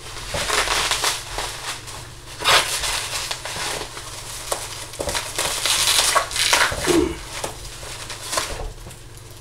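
Plastic packaging wrap rustling and crinkling as it is pulled and crushed off a parcel by hand, in irregular rustles that rise and fall.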